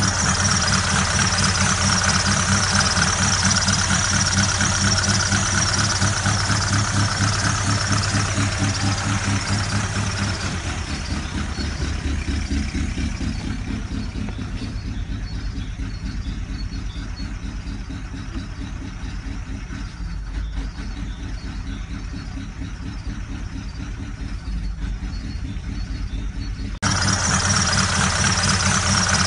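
Ford Galaxy engine idling steadily with a fast, regular knocking clatter, the engine knock whose origin is being sought. Through the middle it sounds duller and a little quieter, then it comes back abruptly bright near the end.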